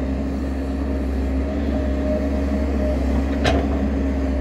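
XCMG XE135B hydraulic excavator's diesel engine running steadily as the arm and bucket swing, with one sharp clank about three and a half seconds in.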